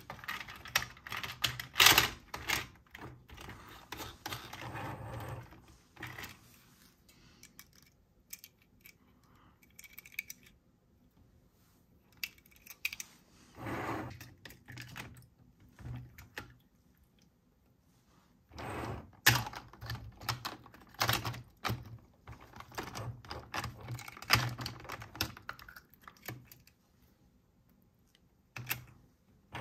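A die-cast toy car being handled on a plastic playset: bursts of quick clicks, taps and clatter of metal and plastic parts, separated by quiet pauses.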